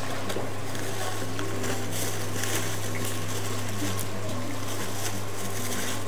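A steady low mechanical hum, with a few light clicks and clatters over it.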